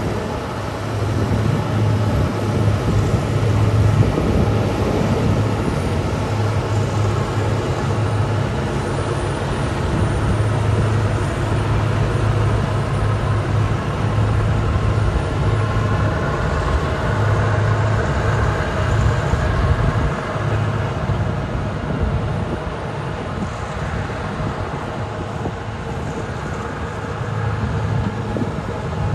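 Diesel engines of Caterpillar 140M motor graders running as they pass: a steady low engine hum, its loudness swelling and easing slightly.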